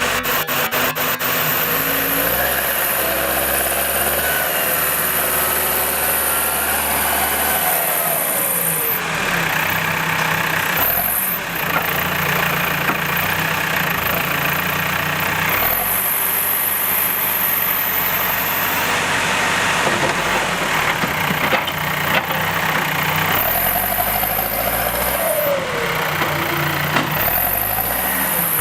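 Diesel engine of a heavy earthmoving machine running under work, its pitch rising and falling several times as the load and throttle change.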